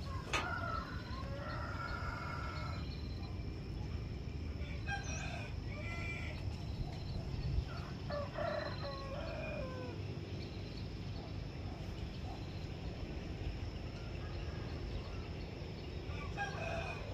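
A rooster crowing several times, each crow a long drawn-out call, over a steady low background rumble.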